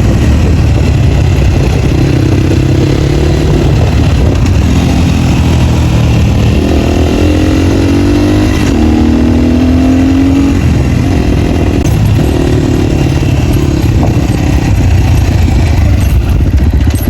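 Dirt bike engines running loud through exhausts with the dB killers removed, the engine note rising and falling with the throttle, most clearly about halfway through.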